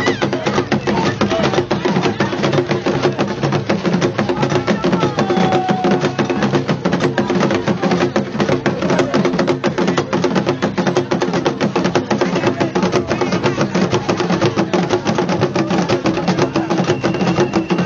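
Akan festival drums beaten in a fast, unbroken rhythm, with crowd voices mixed in.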